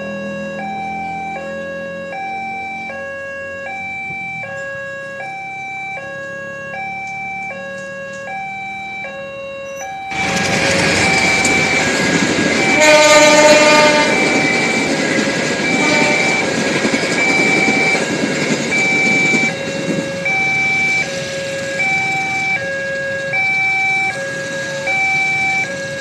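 Level-crossing warning alarm sounding a slow alternating two-tone chime throughout. About ten seconds in, a passenger train arrives and passes with a loud rumble of wheels and engine, with a short horn blast about three seconds after it arrives.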